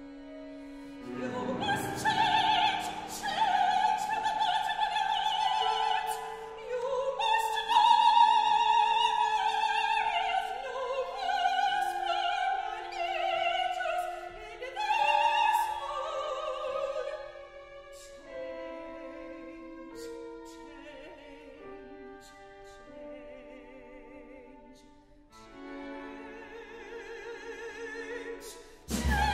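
Operatic singing in a high voice with wide vibrato and long held notes, over a contemporary chamber ensemble of bowed strings holding sustained notes, with a few sharp percussion strikes. The music quietens after about 18 seconds.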